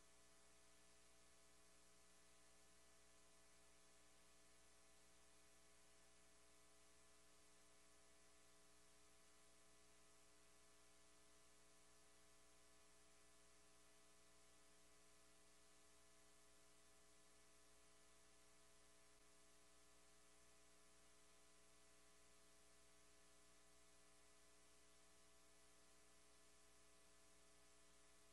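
Near silence: only a faint, steady electrical hum with a few fixed tones, unchanging throughout.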